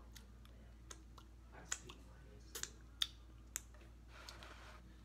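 Faint wet lip smacks and mouth clicks from licking sauce off the fingers, about five sharp ones spread over a few seconds, with a short soft hiss near the end.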